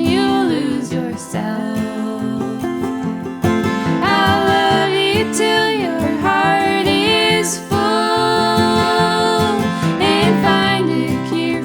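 Background song: a sung melody over acoustic guitar accompaniment.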